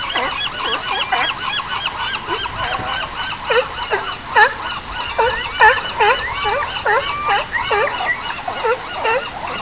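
California sea lions barking: a dense chorus of many overlapping honking barks, with louder single barks through the second half.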